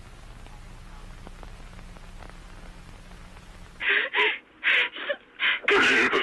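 A steady low hum and hiss for the first few seconds. About four seconds in comes a run of short, muffled, lo-fi gasping breaths, as of a frightened person breathing hard. Near the end it gives way to a louder, harsher continuous sound.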